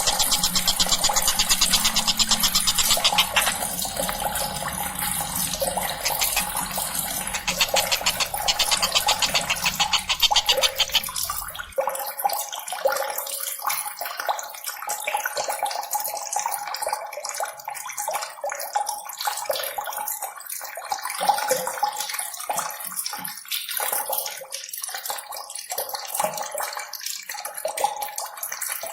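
Fast, dense chattering and trilling calls of the tengkek buto, played as a bird-training recording. For about the first twelve seconds the calls run as a fast, even rattle. Then the sound turns thinner, losing its low end, and goes on as busy, irregular chatter.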